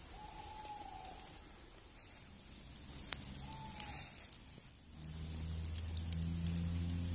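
Campfire embers crackling with frequent sharp pops. A drawn-out wavering call sounds at the start and a shorter one about three and a half seconds in. Low, steady background music comes in about five seconds in.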